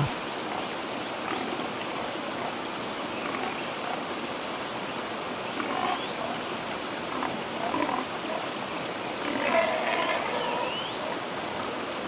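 Pigs vocalizing: scattered short grunts and squeals over a steady outdoor hiss. The calls are busiest and loudest near the end.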